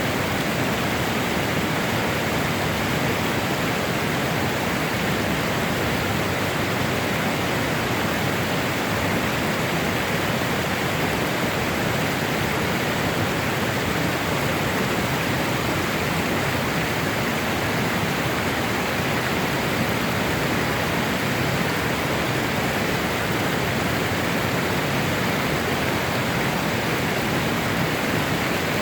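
Steady, even rushing noise that does not change, with no distinct events.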